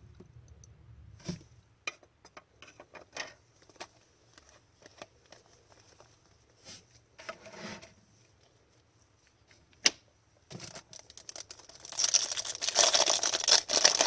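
Trading cards being handled, with scattered small clicks and slides, then a loud, dense crinkling and tearing near the end: a foil card pack being ripped open.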